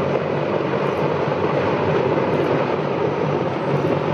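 Mi-26 heavy-lift helicopter flying low overhead with an airliner slung beneath it. Its rotor and turbine engines make a steady, loud noise with a low hum underneath.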